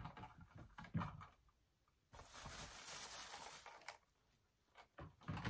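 Shoes being handled and set into a clear plastic shoebox: light knocks of shoe against plastic at the start, about a second in and near the end, with a rustling scrape about two seconds long in the middle.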